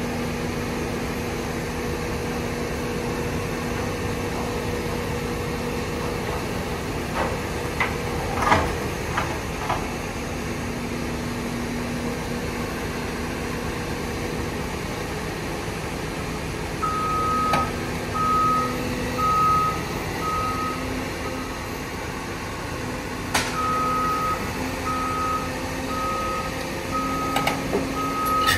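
Diesel engines of heavy construction equipment running steadily, with a few sharp metal clanks. About halfway through, a backup alarm starts beeping at an even pace, stops briefly, then starts again.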